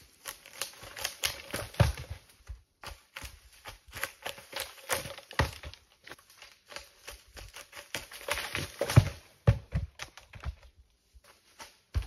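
Big firewood rounds, about 23 inches across, tumbling and bouncing down a steep slope through cut brush and branches: a run of crackling and clattering with several heavy thuds as rounds hit the ground, and a short lull before a last thud near the end.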